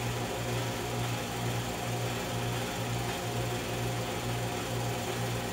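Home-movie film projector running: a steady mechanical whirr over a low hum that pulses in an even rhythm.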